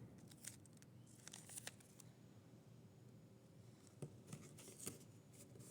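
Faint crinkling and short tearing sounds of adhesive tape being pulled off and pressed over the end of a cardboard tube, coming in a few scattered bursts, most around a second and a half in and between four and five seconds in.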